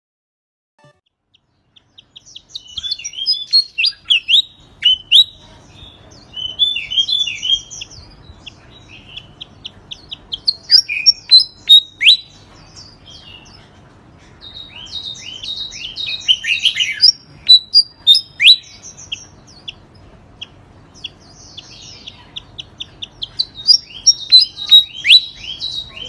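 Caged songbird singing in bursts of sharp, quick, mostly falling notes with short pauses between them, starting about two seconds in.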